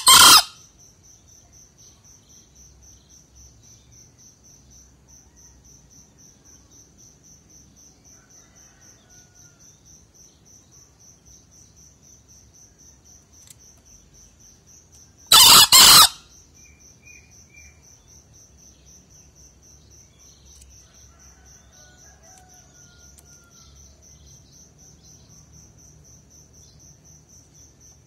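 Green junglefowl rooster crowing: one short, loud call of under a second about halfway through, with the tail of another right at the start. A steady high insect trill, typical of crickets, runs underneath.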